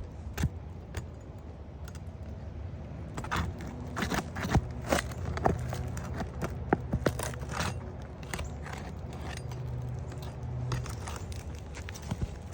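Metal roof snake nail-pulling tool clicking and scraping against asphalt shingles and roofing nails in irregular sharp strokes, with the nails pulling straight through the brittle shingles. A low steady hum runs under it through the middle stretch.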